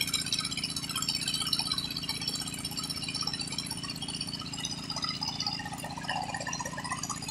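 Water-well drilling rig running: a steady engine drone under a dense, continuous metallic rattle from the rig as it drills.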